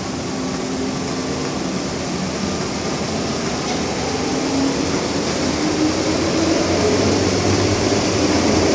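MTR M-Train electric multiple unit heard from inside the car as it pulls away from a station: the traction motors' whine climbs in pitch as the train picks up speed, over the steady rumble of the car, growing slowly louder.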